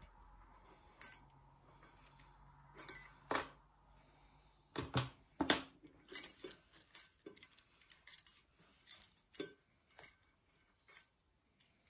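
Small steel valve-train parts (keepers, spring retainer and shims) clicking and clinking against each other and the cast-iron cylinder head as they are taken off a valve by hand: a string of short sharp clinks, sparse at first and coming thick and fast after about five seconds.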